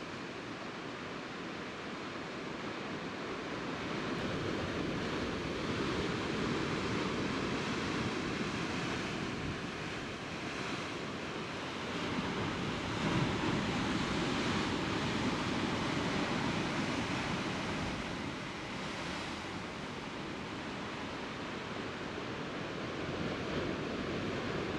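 Sea surf washing against a rocky shore: a steady rush that swells and eases over several seconds at a time.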